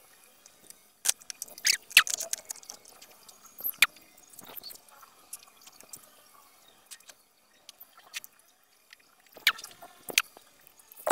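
Scattered light clicks and taps of hands handling wires and a small buck converter board on an LED TV's metal chassis, with a few seconds of near quiet in the middle.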